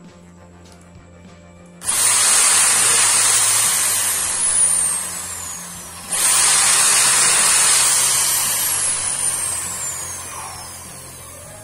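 Corded electric drill in a drill stand, switched on twice as a thin bit bores into a wooden board. Each run lasts about four seconds and carries a high whine that falls in pitch, and the second run fades out near the end.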